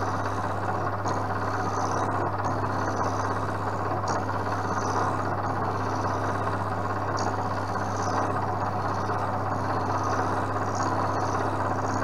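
Vertical milling machine running steadily with a low motor hum, its end mill cutting a nylon workpiece as it is turned in a spin indexer. A higher hiss of cutting swells and fades every second or so.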